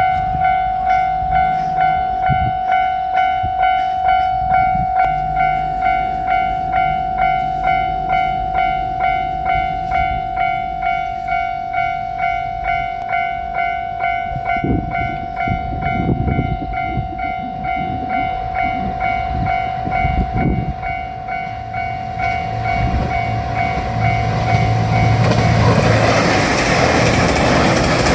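Japanese level-crossing warning bell ringing its steady, evenly repeating electronic 'kan-kan'. In the last few seconds a JR Shikoku 2700 series diesel limited-express railcar passes through the crossing, and the loud rush of its wheels and engine rises over the bell.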